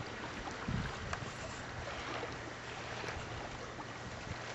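Steady wind rumble on the microphone over choppy lake water lapping at a small open boat, with a faint low knock about a second in and a few light clicks.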